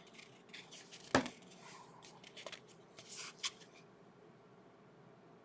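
Trading cards being handled and flipped through: a sharp click about a second in, then brief light rustling and another click, going quiet for the last second and a half.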